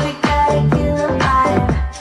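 Dance-pop music with a steady kick drum about twice a second, played back loud through a Samsung HW-C430 2.1 soundbar and its wireless subwoofer.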